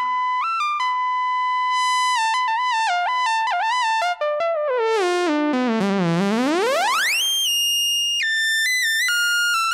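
1987 Ensoniq SQ-80 synthesizer playing a bright single-note lead: quick stepping notes, then about halfway through one long pitch swoop down low and back up high, then stepping notes again.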